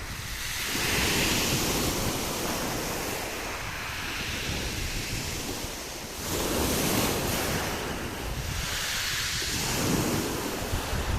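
Sea waves washing onto the shore, the surf swelling and falling back every few seconds, with wind buffeting the microphone as a low rumble.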